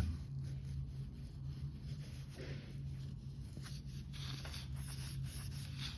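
School pencil eraser rubbed back and forth against a wall to wipe off black marks: a run of quick, scratchy rubbing strokes over a steady low hum.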